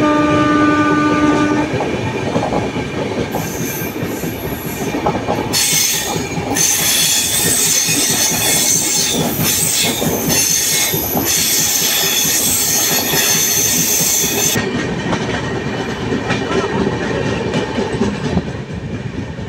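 Passenger train running at speed, with steady rumble and rail clatter from the carriage. A single horn note sounds for under two seconds at the start. Then a high, hissing wheel squeal rises about three seconds in and lasts about eleven seconds before it stops.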